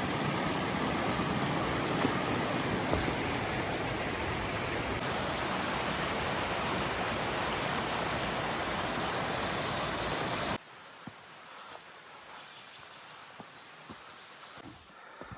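Steady rush of a mountain stream flowing over rocks, which cuts off abruptly about ten seconds in. What follows is much quieter: scattered footstep-like ticks on a trail and a few faint high chirps.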